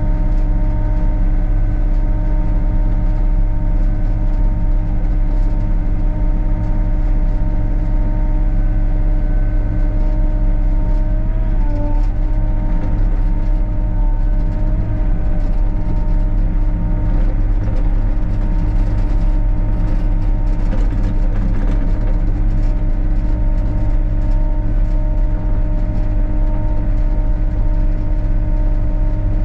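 Sany SY35U mini excavator's diesel engine running steadily, with a constant whine over a low rumble and a brief wobble in pitch about twelve seconds in.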